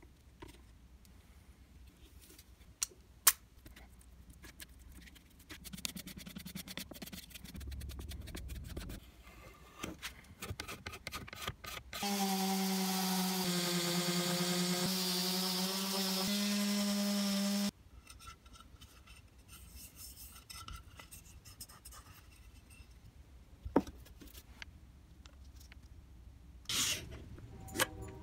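Quiet scraping and rubbing of a putty knife working wood filler, with a few sharp clicks. About twelve seconds in, an electric detail sander runs for about six seconds with a steady hum that steps up in pitch just before it cuts off. Quieter rubbing and scraping follows.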